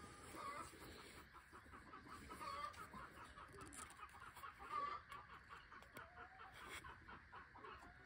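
Chickens clucking faintly, short notes repeating several times a second with a few louder clucks among them.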